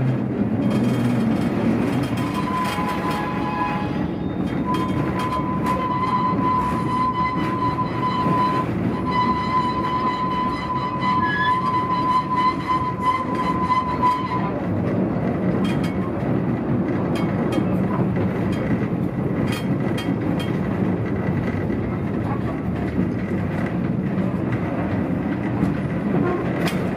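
Akenobe Mine one-yen train, a small wooden mine-railway passenger car, running on its narrow track with a steady rumble and rattle. A steady high tone joins a few seconds in and stops about halfway through. Sharp clicks come here and there in the second half.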